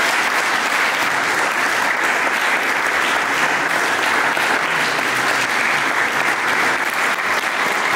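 Audience applauding steadily, a continuous dense clapping.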